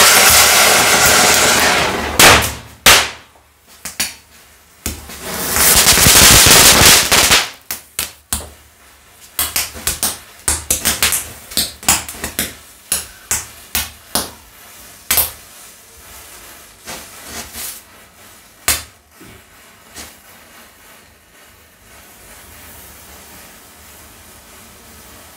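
Diwali firecrackers going off: a loud hissing spray of sparks, two sharp bangs, then another long hiss. A rapid string of sharp cracks and pops follows and thins out, with one last bang well after.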